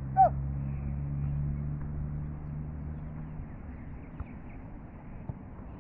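A vehicle's engine hums and fades away about three and a half seconds in. Right at the start comes a short, falling bird call, the loudest sound. Later there are a couple of soft thumps of a football being headed or caught.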